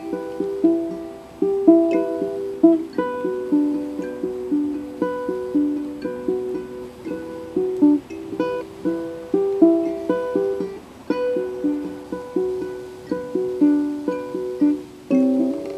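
Ukulele fingerpicked, single plucked notes ringing and fading several times a second in a continuous melody.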